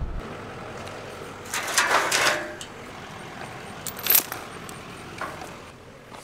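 A chain rattling and metal clanking as a steel pipe ranch gate is unchained and opened. There is a rattle about two seconds in and a sharp clank, the loudest sound, about four seconds in.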